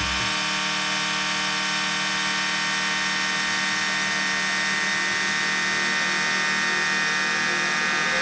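Tornos GT32 Swiss lathe polygonal turning brass: the main spindle and the rotating polygon cutter spin in step, giving a steady, even whine as the flats are cut.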